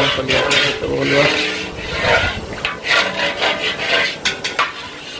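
Repeated rasping, scraping strokes of a metal ladle in a large iron wok, over a steady hiss from gas burners under the woks. Voices are heard in about the first second.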